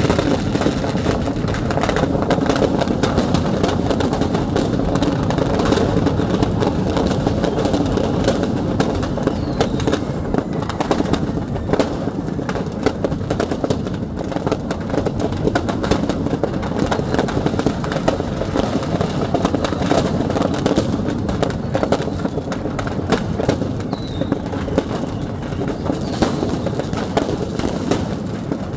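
A shop's stock of firecrackers and fireworks going off together in a burning store: a dense, continuous crackle of many small bangs, unbroken throughout.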